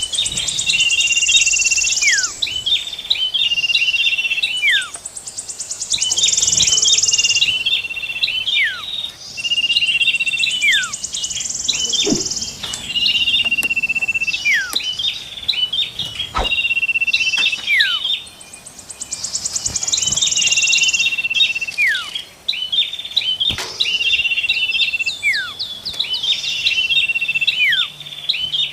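A bird-lure mix of songbird calls, from the common iora (cipoh), prinia (prenjak) and cikrak kutub warbler: steady whistled notes, sharp down-slurred whistles and fast buzzy trills, repeating every few seconds.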